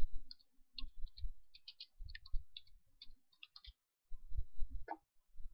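Computer keyboard typing: a quick, uneven run of key clicks, then a short pause and one sharper key press about five seconds in.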